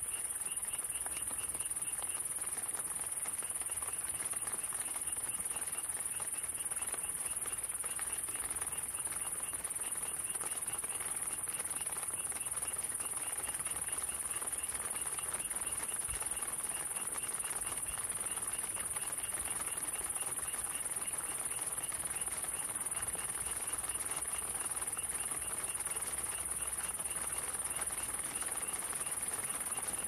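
Crickets chirring: a loud steady high-pitched trill, with a second insect chirping in quick even pulses, over a soft even background hiss.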